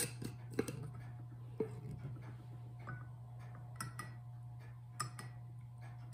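A metal teaspoon clinking lightly against a porcelain teacup while stirring tea: a handful of separate, irregular clicks over a low steady hum.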